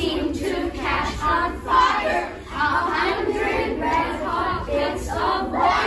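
A class of children chanting a verse together in unison, a choral reading, their many voices blending into one rhythmic group recitation.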